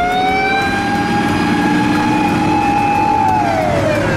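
Japanese fire engine's siren wailing at one steady high pitch, then winding down in pitch about three seconds in.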